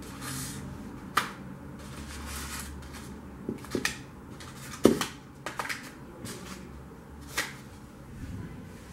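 Small cookie tins being handled and set into a combination microwave oven: a handful of sharp clicks and knocks, the loudest about halfway through, over a low steady hum.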